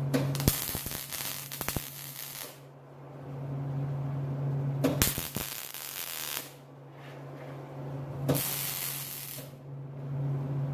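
Electric arc welder laying three short tack welds on an exhaust pipe: each is a crackling hiss lasting one to two seconds, with quiet gaps between, over a steady low hum.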